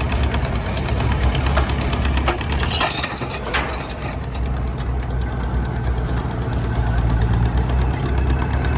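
Engine of an antique Insley dragline excavator running steadily with a low, knocking throb. A few sharp metallic clicks come about three seconds in, as the engine note dips briefly before picking up again.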